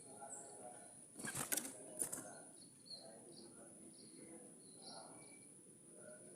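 Two short rustling noises, about a second in and again at two seconds, over faint short calls of sooty-headed bulbuls and a steady high whine.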